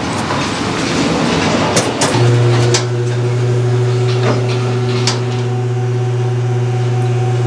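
Percussive massage gun running: a rapid mechanical rattle that settles into a steady low hum about two seconds in, with a few short clicks.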